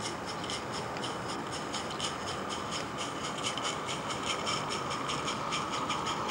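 Garden-railway model narrow-gauge locomotive and its train running past on the track, a rapid, even ticking over a steady rushing noise that grows louder near the end.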